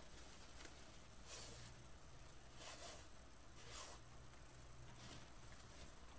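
Faint rustling of wire-edged ribbon being handled and fluffed into a bow, with a few soft crinkles in the first four seconds.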